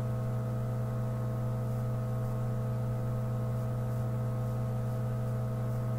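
Steady low electrical hum with a few fainter steady higher tones over a light hiss, unchanging throughout.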